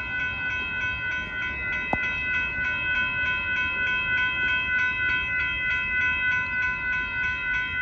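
Grade-crossing warning bell ringing steadily at about two strikes a second over the rumble of an approaching Amtrak passenger train led by two diesel locomotives. A single sharp click about two seconds in.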